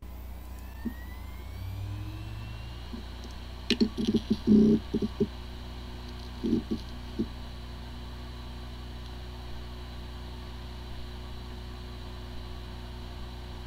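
Hard disk drive running with a steady whir. A rising whine comes in the first few seconds, then a cluster of short knocks about four seconds in and a few more around six to seven seconds, which are the loudest sounds. The drive has corrupted firmware but sounds like a good drive.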